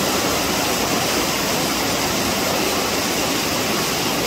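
Creek water rushing over rock ledges and small rapids: a steady, even rush of water.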